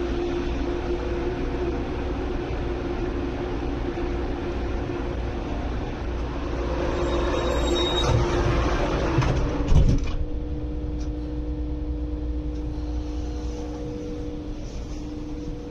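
Interior of an MTR Airport Express train car standing at a station with its doors open: a steady hum with rising platform air noise and a brief high tone about eight seconds in. Just before ten seconds the sliding doors shut with a sharp thump, and the cabin hum carries on quieter and steadier after it.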